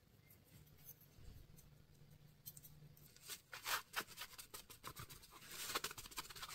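Paper towel rubbing and scrubbing over a 3D-printed PLA cap, wiping back a fresh black paint wash. The rustling comes in short strokes from about three seconds in, after a near-quiet start.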